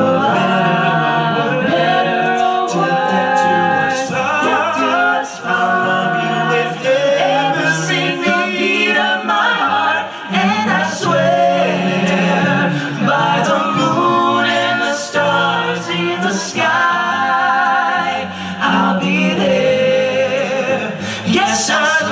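Male a cappella vocal group singing a slow ballad in close harmony, several voices holding sustained chords with vibrato.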